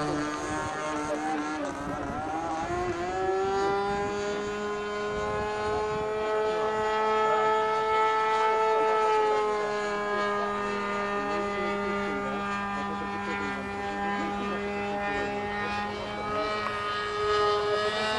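Magnum 10cc engine of a radio-controlled model airplane running in flight, its propeller drone passing overhead. The pitch falls over the first couple of seconds, rises again about three seconds in, holds fairly steady, and climbs once more near the end.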